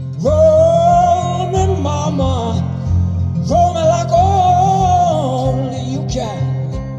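A song played back over a hi-fi system: strummed acoustic guitar under a singer who sings two long phrases of held notes.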